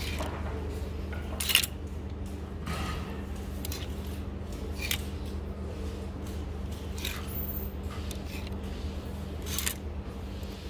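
Clothes hangers scraping and clicking along a clothing rack as garments are pushed aside one at a time, about five sharp scrapes a second or two apart, the loudest about a second and a half in. A steady low hum runs underneath.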